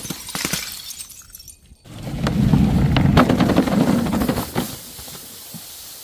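Glass breaking and crunching: scattered clinks and cracks at first, a short lull, then from about two seconds in a dense run of crunching and crackling that lasts a couple of seconds and tails off.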